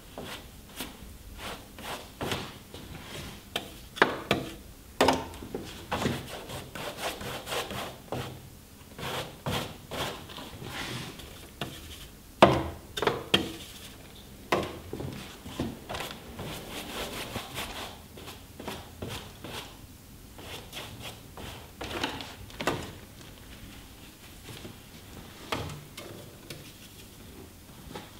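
Watercolour brush rubbing and scrubbing across paper in irregular strokes, mixed with sharp clicks and knocks, the loudest about 4 and 12 seconds in.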